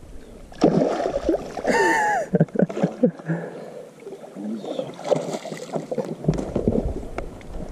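A hooked largemouth bass splashing and thrashing at the surface as it is scooped into a landing net beside the boat, with water sloshing and irregular knocks.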